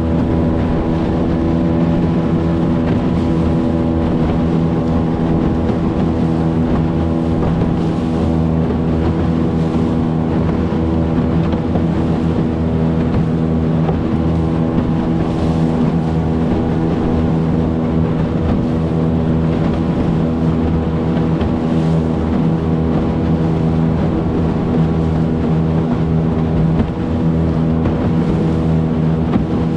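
Hangkai 18 hp outboard motor running steadily under way at about quarter throttle, its engine note holding an even pitch.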